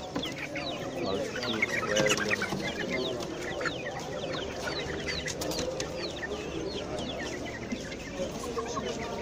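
Caged chicks peeping continuously in many quick, falling high chirps, over the clucking of hens.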